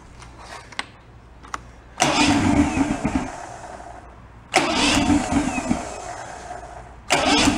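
Outboard motor being cranked over three times in quick succession, each try starting abruptly and dying away after about two seconds without settling into a steady run. This is a warm restart shortly after the motor was shut off, and it is reluctant to start.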